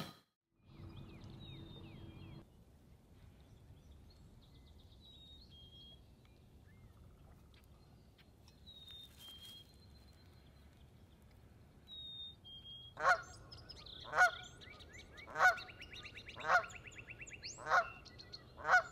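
Canada geese honking, loud single honks repeating about once a second from about two-thirds of the way in. Before them, only faint high two-note whistles from a small bird.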